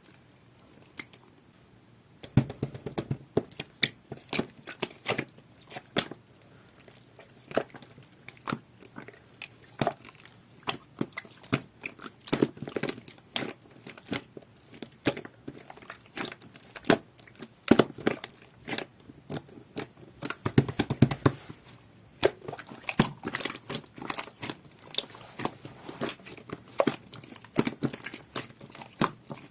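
Jelly-textured slime being squished and pressed by hand, giving irregular sharp pops and clicks that start about two seconds in.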